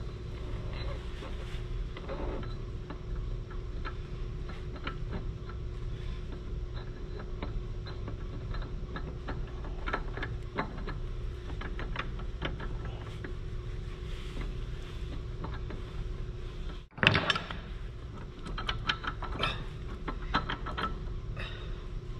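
Steel parts and hand tools clinking and tapping on and off while a new prop shaft is fitted into an excavator's final drive, over a steady low hum. A louder run of clanks comes near the end.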